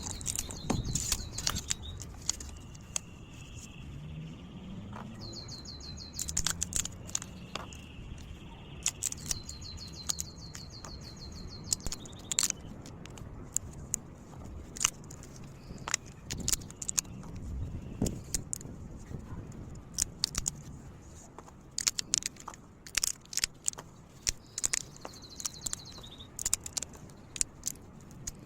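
Scattered sharp metallic clicks, clinks and taps from metal parts being handled, irregular throughout. A few rapid high trills are heard over them, the longest running from about nine to twelve seconds in.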